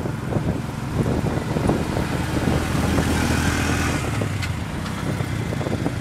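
Small vehicle's engine running, with road noise and rattling, heard from on board while moving. A hiss of tyres and wind swells through the middle.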